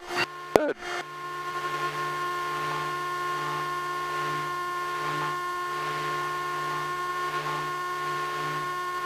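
Aircraft intercom audio feed: a few sharp clicks in the first second, then a steady hum with several fixed tones as the light plane taxis.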